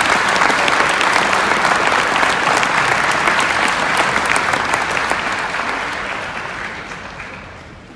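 A crowd applauding with steady clapping that dies away over the last three seconds.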